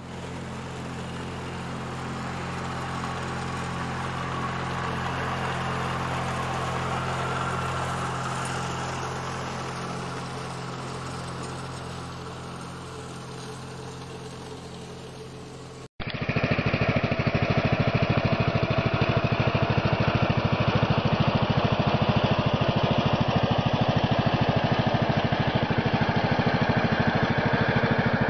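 Riding lawn mower engine running steadily, growing louder and then fading as it passes. About sixteen seconds in it cuts to a louder small mower engine running with a fast, even throb.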